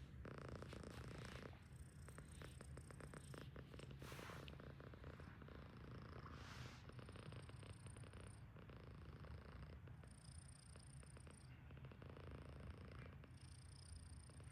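A sleeping Himalayan cat snoring: a faint, steady low rumble.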